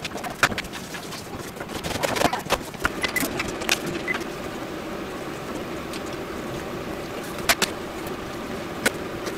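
Steady low hum at a gas stove with a lit burner under a small saucepan of liquid. Sharp clicks and knocks of containers being handled come in the first few seconds, with two more near the end.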